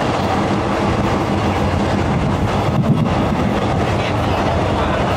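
Passenger train running along the track, heard from aboard: a steady, loud running noise of wheels on rails and the moving carriage.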